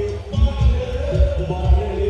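Music with a heavy low beat under a held, wavering melody.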